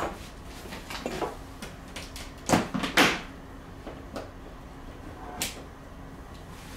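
Handling noises as an LED work light is set up and switched on: a string of sharp clicks and knocks, the loudest cluster about two and a half to three seconds in, with a lone click near the end.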